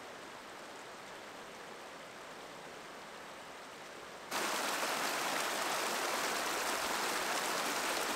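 Small mountain creek running over rock: a steady rush of water. About four seconds in it steps up suddenly to a louder, brighter rush from a faster, tumbling stretch of the creek.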